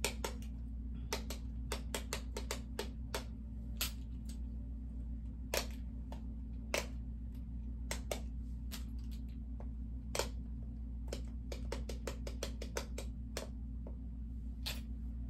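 Irregular sharp clicks and taps of small plastic fidget toys being handled and set down, some in quick runs, over a steady low hum.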